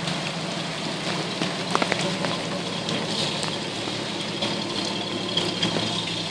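Engines of a column of old military trucks idling steadily, with a low hum.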